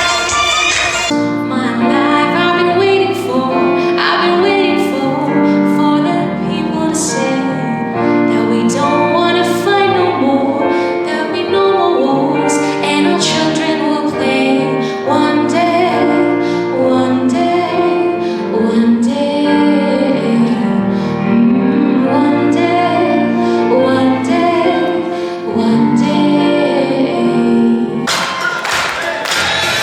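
Music with a woman singing a slow, gliding melody over held chords. The sound changes character about a second in and again near the end.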